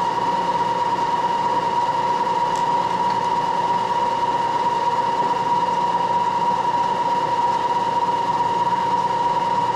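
Moore jig borer running with its spindle and tool head spinning freely, not yet cutting: a steady machine whine with one strong even tone.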